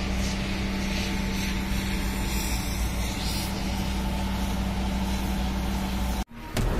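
Steady drone of a truck engine running its water pump, mixed with the hiss of a pressure hose washing the street. It cuts off abruptly about six seconds in.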